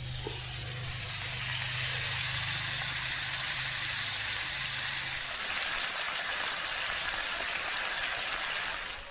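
Burger patties sizzling as they fry on a camp cooker, a steady hiss, with a low hum underneath that stops about five seconds in.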